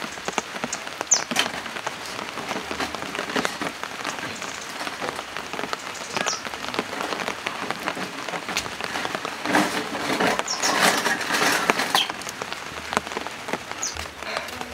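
Steady rain falling on wet paving and roofs, with many sharp individual drips. It grows somewhat heavier a little past the middle.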